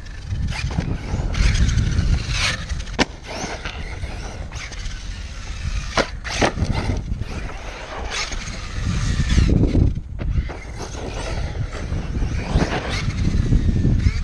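ARRMA Kraton RC monster truck running over dirt jumps on its brushless electric motor: a faint whine that rises and falls with the throttle, tyres scrabbling on loose dirt, and sharp knocks now and then as it lands and hits the ground. A low, gusty rumble of wind on the microphone runs underneath.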